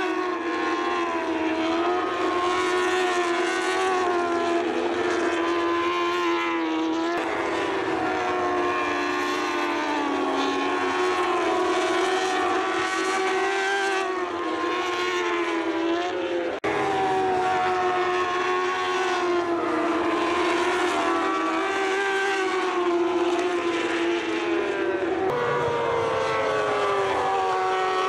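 Moto2 racing motorcycles' four-cylinder 600 cc Honda engines running hard around the circuit, several engines heard at once, their pitch rising and falling through the corners and gear changes. The sound breaks off and changes abruptly twice.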